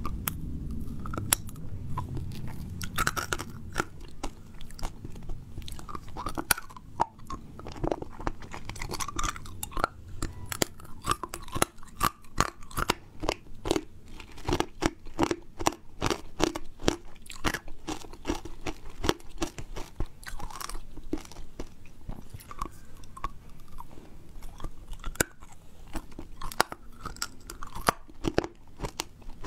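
A hard fish-shaped lollipop being bitten and crunched between the teeth, close to the microphone: a long run of sharp, irregular cracks mixed with chewing.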